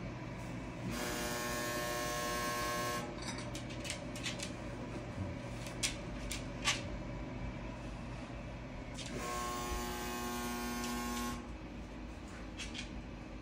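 Grand Teton pellet stove running with a steady fan hum. A motor whirs twice, about two seconds each time, which fits the auger feeding pellets. Between the two runs come a few light, sharp clicks.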